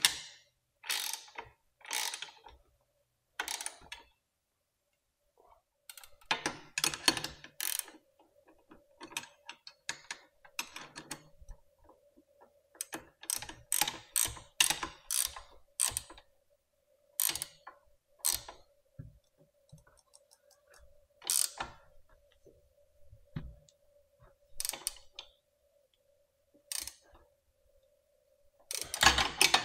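Ratchet wrench clicking in short, irregular bursts, tightening down the fasteners of a freshly fitted e-bike rear hub motor.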